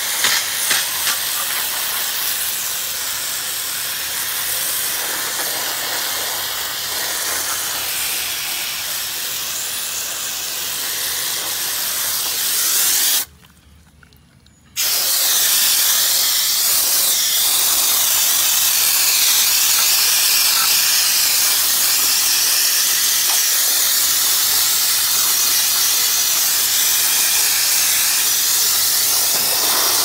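Coil-cleaner spray gun hissing steadily as it jets cleaner into a heavily plugged evaporator coil. The spray cuts out for about a second and a half near the middle, then resumes louder.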